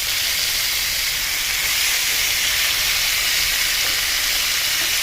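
Lamb loin chops sizzling steadily in hot oil in a pan as they sear, a constant frying hiss.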